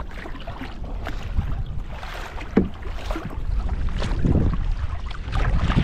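Wind buffeting the microphone over sea water splashing in irregular bursts.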